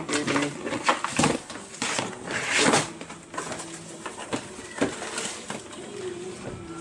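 Irregular rustling, scraping and light knocks from a dog in a plastic cone collar shifting about in a plastic pet carrier, the cone brushing the carrier walls and bedding. The loudest rustle comes about halfway through.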